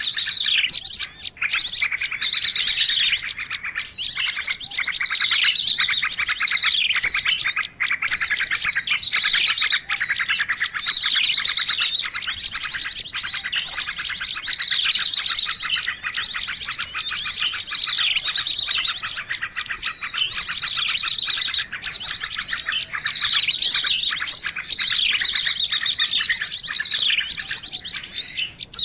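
A dense, continuous chatter of small songbirds: many high chirps and twitters overlap, with quick falling whistled notes repeating about every second. It is a bird-lure recording, played to draw small birds in.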